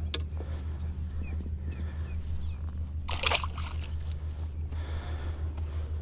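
A short splash at the water's surface about three seconds in: a released redfish kicking away beside the kayak.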